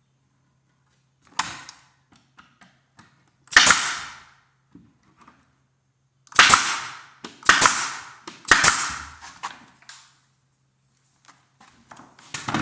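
Nail gun firing as it nails the door jamb's top and side pieces together: five loud sharp shots, spaced a second or more apart, each trailing off briefly, with a fainter shot about a second and a half in.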